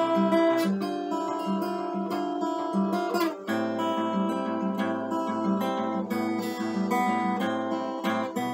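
Acoustic guitar played solo, a steady run of strummed and picked chords; about three seconds in it changes chord and the bass note drops lower.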